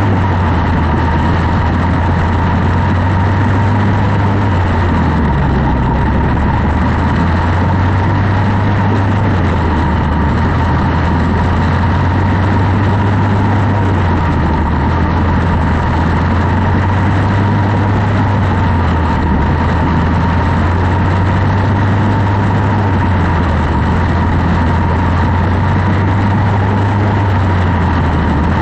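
Onboard sound of a quarter midget race car's single-cylinder Briggs & Stratton Animal engine running hard and loud, its note dropping and rising again every few seconds as the driver lifts and gets back on the throttle around the oval.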